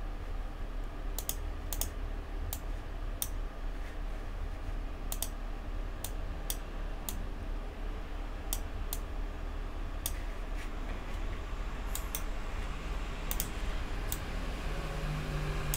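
Clicks of a computer mouse and keyboard while working at a PC, sharp and irregular, about one a second and often in close pairs, over a faint steady low hum.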